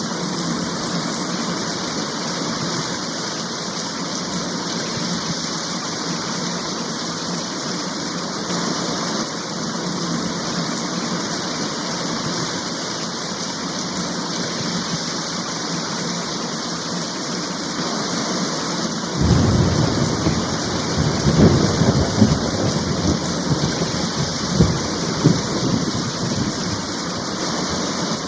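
Heavy rain falling steadily, with a roll of thunder that breaks in suddenly about two-thirds of the way through, rumbling and crackling for several seconds before fading back into the rain.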